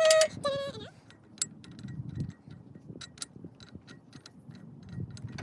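Scattered sharp metal clicks and clinks of recovery shackles being handled and fitted to a Jeep's bumper and leaf springs, after a short voice-like sound at the start.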